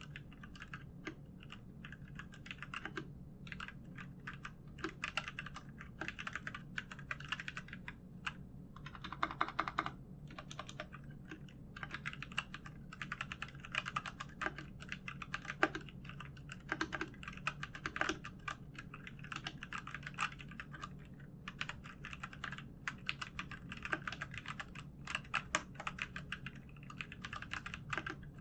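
Royal Kludge RK61 mechanical keyboard with Gateron Brown switches being typed on: fast, continuous key clacking with a couple of brief pauses.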